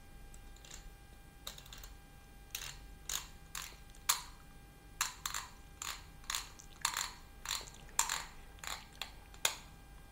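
The adjustment knob of an iKape KB3 manual coffee grinder being screwed on clockwise by hand, with its stepped grind setting clicking: a series of short, sharp clicks, unevenly spaced at roughly two a second.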